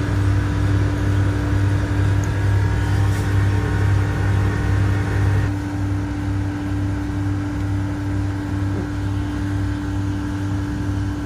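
Steady machine hum: a low drone with a steady higher tone over it, and a hiss that drops away about halfway through.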